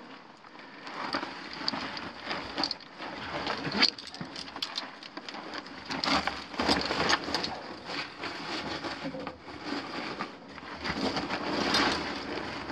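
Irregular scuffing, scraping and crunching as a person clambers over loose rock and gravel in a tight rock passage, with clothing and pack rubbing against the rock, plus scattered clicks and knocks; the sharpest knock comes about four seconds in.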